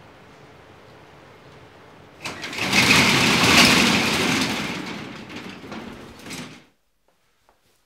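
Corrugated metal roll-up garage shutter pulled down, a loud rattling clatter starting about two seconds in, fading over the next few seconds and then stopping abruptly.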